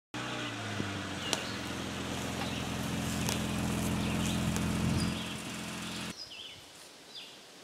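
Jeep's engine idling steadily, then stopping abruptly about six seconds in. Birds chirp throughout.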